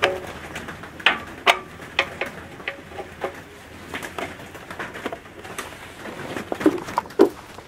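Scattered sharp clicks and knocks, with a pigeon cooing a couple of times near the end.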